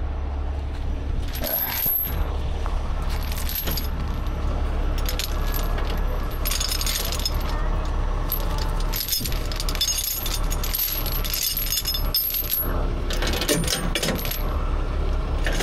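Steel tow chain clinking and rattling in repeated clusters as it is handled and wrapped around the box truck's front frame and suspension, over a steady low rumble.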